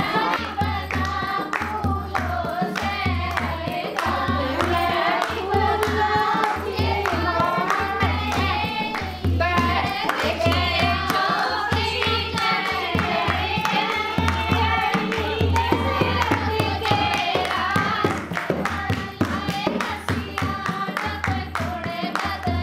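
A song with a singing voice over a steady, repeating bass beat.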